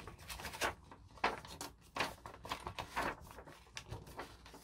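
A sheet of paper rustling and crinkling in the hands as it is folded, in short irregular bursts.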